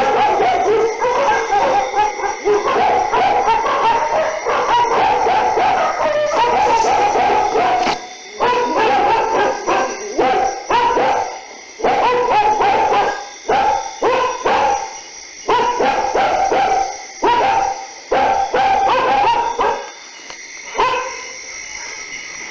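Dogs barking in quick succession, nearly unbroken for the first several seconds and then in separate bursts, dying down near the end.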